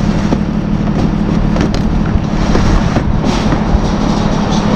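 A steady low engine-like hum with irregular knocks and clatter over it, as of plastic buckets being handled and set down.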